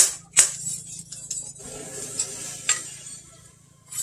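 Hand hammer striking a steel knife blade on a steel post anvil: two sharp, ringing blows about 0.4 s apart at the start, then lighter metal clinking and one more blow, before the hammering pauses near the end.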